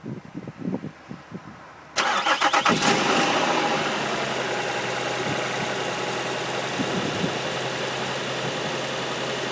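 Nissan Murano engine started cold: a few faint clicks, then about two seconds in it cranks and catches with a brief rapid rattle before settling into a steady idle. This is the morning start on which the owner hunts an intermittent knock.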